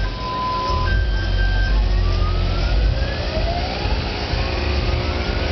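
Car sound system with MTX 9500 subwoofers playing loud, deep bass under siren-like electronic tones. Two steady tones alternate at first, then rising sweeps repeat from about two seconds in.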